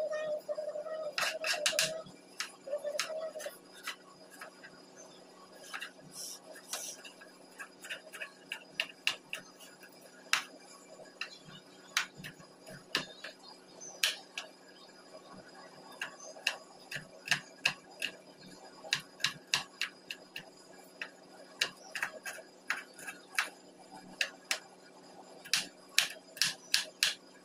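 Kitchen knife chopping garlic on a wooden chopping board: quick, irregular taps of the blade striking the board, often in short runs. A brief steady tone sounds twice in the first few seconds.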